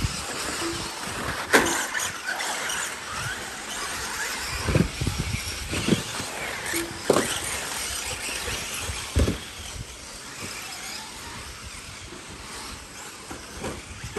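Radio-controlled short course trucks racing: motors whining, rising and falling in pitch with the throttle, with four sharp knocks spread through the first nine seconds or so.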